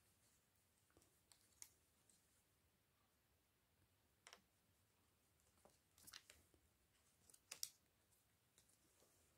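Near silence with a handful of faint, short clicks and rustles as a crochet hook works chenille velvet yarn.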